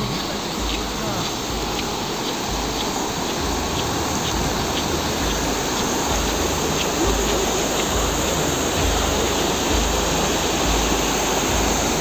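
Steady rushing of heavy rain and running water, with faint regular ticks and low thuds underneath.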